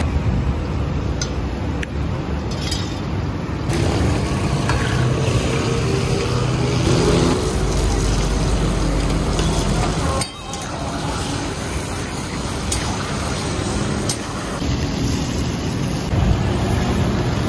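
Chicken pieces sizzling in oil in a karahi over a gas burner running at high flame, giving a steady rushing, rumbling noise, with a few clinks of metal utensils. The sound drops out briefly about ten seconds in and picks up again.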